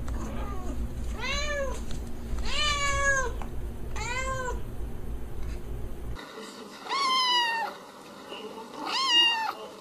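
A calico cat meows three times, each a drawn-out meow that rises and falls, over a low hum. Then a ginger kitten being stroked gives two higher-pitched mews.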